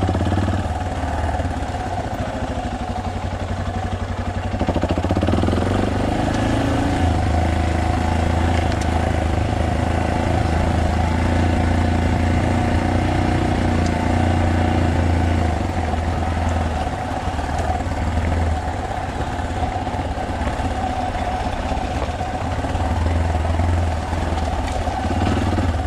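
Trail motorcycle engine running steadily under way on a forest road, its pitch rising as it revs up about five seconds in, then holding steady.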